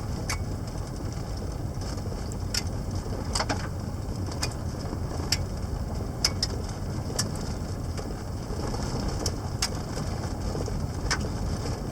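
Car interior while driving: a steady low rumble of engine and road noise, with light scattered clicks and rattles about once a second.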